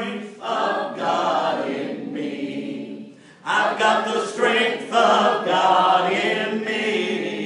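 A congregation singing a worship chorus together, with a short break between phrases about three seconds in.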